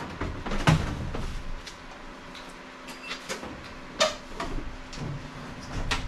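Sheet-metal knocks and clunks as a Bosch evaporator coil cabinet is set and pushed into place on top of a gas furnace. There are several sharp knocks, the loudest just under a second in and again about four seconds in.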